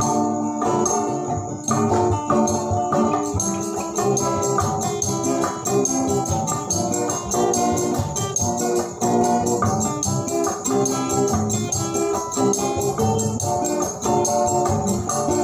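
Instrumental music from several acoustic guitars playing together over percussion that keeps a steady, fast rattling beat.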